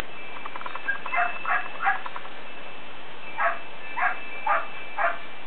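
A dog barking: three short barks about a second in, a pause, then four more.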